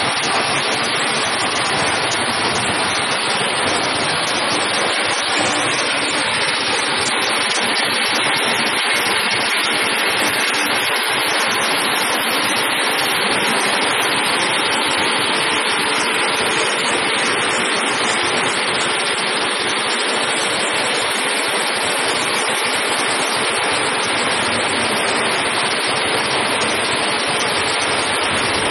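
Hammer-mill metal crusher running with a loud, steady, dense mechanical roar as it shreds scrap metal.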